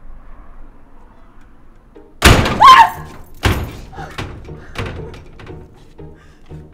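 Trailer sound-effect impact: a loud slam-like hit about two seconds in, a second hit a second later, then a run of fading echoing strikes. A regular low pulsing beat starts near the end.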